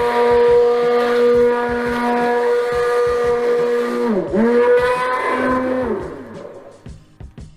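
Hand-held immersion blender motor running in a stainless steel bowl of liquid lotion, a steady whine as it blends the oils and water to emulsify. About four seconds in the pitch briefly drops and climbs back, then the motor runs again and winds down with falling pitch near the end.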